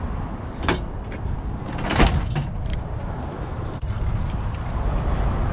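Two sharp knocks from a part being put back in place by hand, a small one just under a second in and a louder one about two seconds in, over a steady low rumble.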